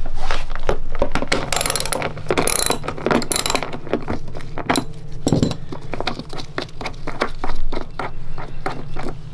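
Half-inch socket ratchet clicking in quick runs as it turns the nuts off the toilet's floor bolts.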